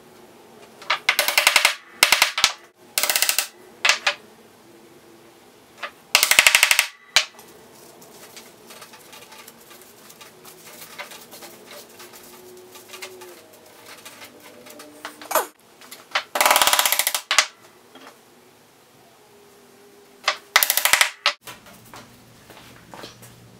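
Claw hammer driving glued wooden dowel pins into a tabletop's breadboard end (draw-bore pinning), heard as several short bursts of rapid, sharp taps with quieter gaps between them.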